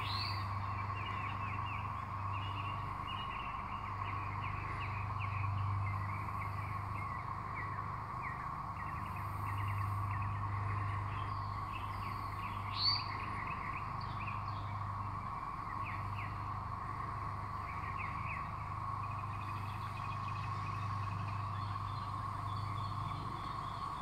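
Chorus of cicadas droning steadily and evenly, with songbirds chirping over it now and then and one louder chirp about 13 seconds in.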